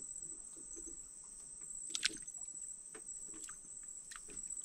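Steady high-pitched chirring of night insects, with a few faint clicks and knocks, the sharpest about two seconds in.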